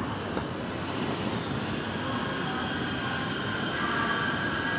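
Railway station concourse ambience: a steady rumble of footsteps, wheeled bags and distant crowd, with a faint high-pitched wheel squeal that grows stronger in the second half.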